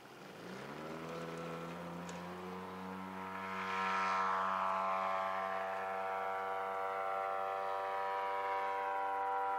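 A radio-controlled model tow plane's engine opening up to full throttle for an aerotow launch of a large model glider. Its pitch rises over about the first second, then holds steady, and it is loudest about four seconds in as the plane passes close.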